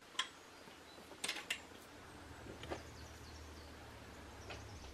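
Quiet room tone: a low steady hum with a few faint, scattered clicks and taps.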